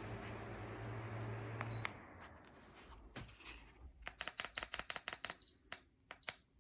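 Bladeless ceiling fan running with a steady whoosh and low hum, cutting off with a click about two seconds in. Later comes a quick run of short, high beeps, about eight a second, and two more near the end.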